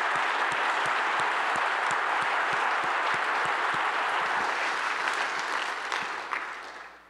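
Audience applauding, a steady round of applause that dies away near the end.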